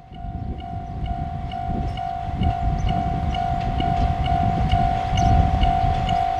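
Level crossing warning bell ringing about twice a second while a KiHa 120 diesel railcar approaches, its engine and wheels rumbling more loudly as it comes closer.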